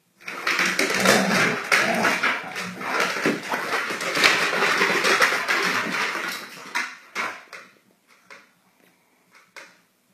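Two basset hounds play fighting: a dense, rough scuffle of noisy movement with many quick knocks for about seven seconds, then dying away to a few scattered taps.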